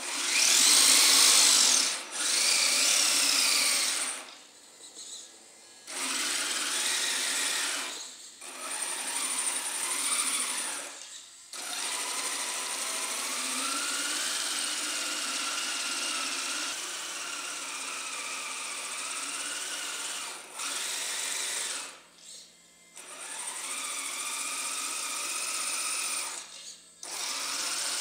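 Electric drive motors and geared drivetrain of a six-track RC crawler truck whining as it drives on concrete, with no engine-sound kit running. It stops and starts several times, and the whine rises and falls in pitch with the throttle.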